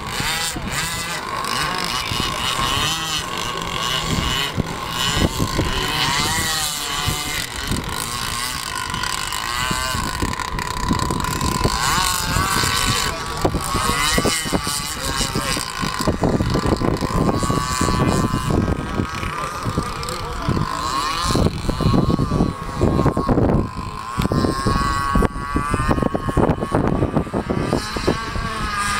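Radio-controlled speedboat's motor whining at speed across the water, its pitch rising and falling as it runs. Low buffeting noise comes and goes through the second half.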